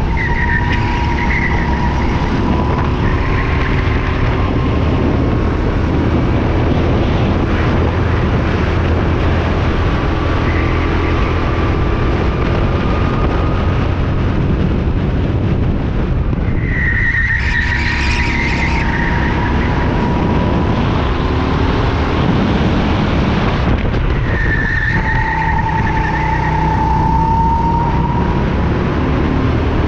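Go-kart engine running hard at racing speed, heard on board the kart. Higher-pitched tyre squeal comes in during corners, most clearly just after halfway and again later on.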